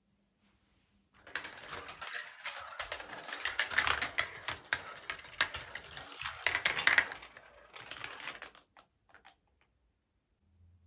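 Marbles rolling and clattering down a GraviTrax plastic marble run. A dense run of sharp clicks starts about a second in, thins out after about seven seconds and stops shortly before the end.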